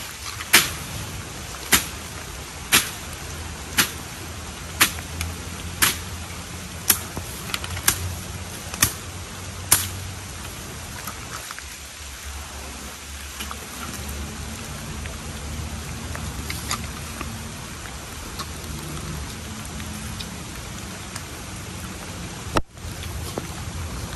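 Machete blade chopping into wet ground while digging for worms: about ten sharp strikes, roughly one a second, stopping about ten seconds in. After that only a low steady background remains, with one sharp click near the end.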